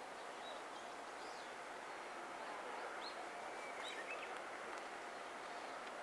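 Quiet outdoor ambience: a steady low hiss with a few short, high bird chirps scattered through.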